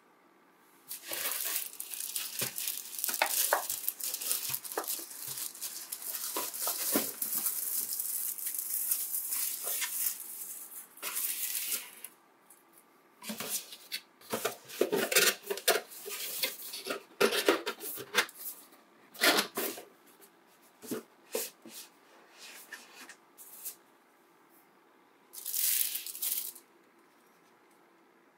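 Thin plastic wrap around an essential oil diffuser rustling and crinkling as the diffuser is lifted out of its cardboard box and handled. Near-continuous rustling for the first ten seconds or so, then scattered crinkles and taps with short pauses between.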